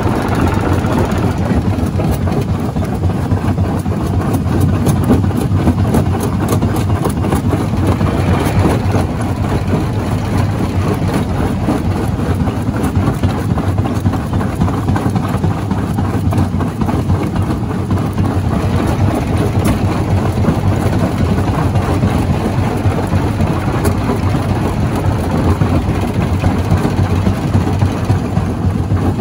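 Stone jaw crusher running with a loud, steady heavy drone and a dense rumble, with light clattering about seven seconds in.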